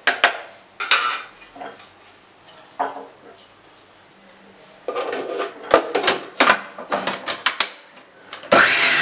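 Bajaj food processor run in short pulses to finely chop onion, ginger, garlic and green chilli. Irregular clattering strokes, with a denser half-second burst near the end.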